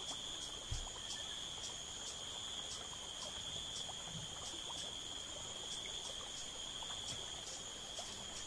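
Insects calling: a steady high continuous trill with a second call pulsing about three times a second. A soft low thump comes about a second in.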